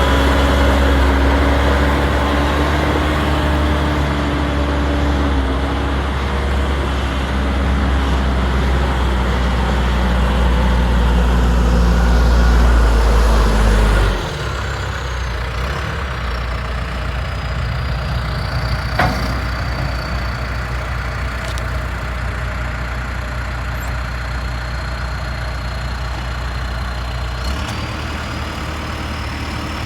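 John Deere 410J backhoe loader's diesel engine running at raised revs, then dropping to a lower idle about halfway through. A high whistle falls in pitch as the engine slows, holds steady, and starts to rise again near the end.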